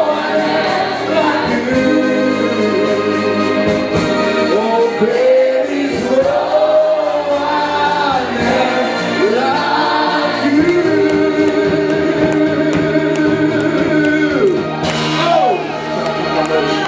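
Gospel worship song sung by a group of voices over sustained instrumental backing.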